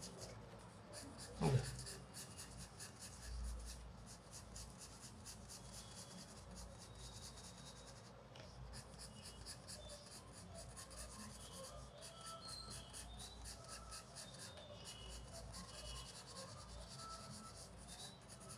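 Colour pencil scratching on paper in quick, repeated short strokes, faint, as a drawing is shaded in. A brief low voice-like sound comes about a second and a half in.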